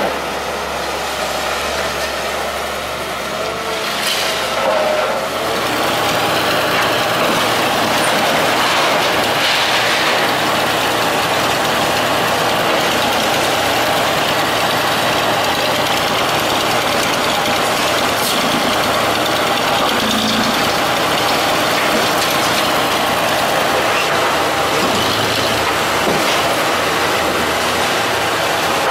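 Diesel engines of heavy demolition machinery running steadily, with a change in the low engine sound about five seconds in and a few faint knocks here and there.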